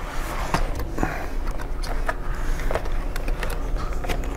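Irregular light clicks and taps of laptop parts being handled and fitted together, over a steady low hum.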